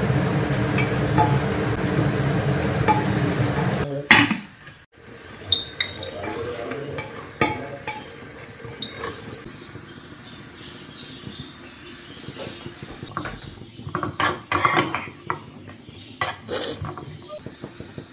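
A steady mechanical hum that cuts off abruptly about four seconds in, followed by metal utensils clinking and scraping against a cooking pot as food is stirred, with a light sizzle underneath.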